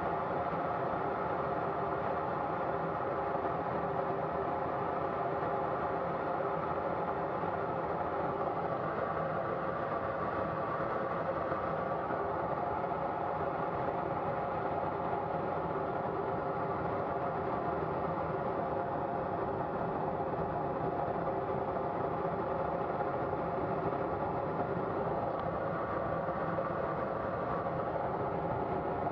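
Steady, unchanging drone inside the cockpit of a Colomban CriCri Jet in flight: the small jet turbines running, with a few held tones over airflow noise.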